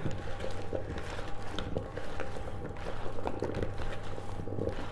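Hands tossing raw pumpkin chunks with olive oil and salt in a plastic mixing bowl: soft squelching and irregular small knocks of the chunks against the bowl, over a steady low hum.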